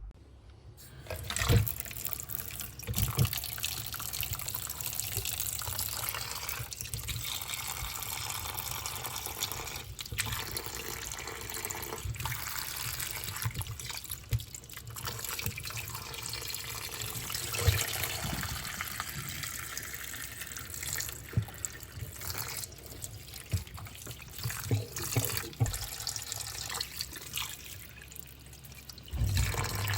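Water running from a tap into a sink, with frequent short knocks and clatters of things being handled under the stream.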